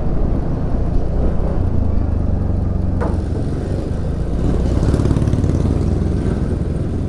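Motor scooter running with a steady low rumble and road noise, with a brief high chirp about three seconds in.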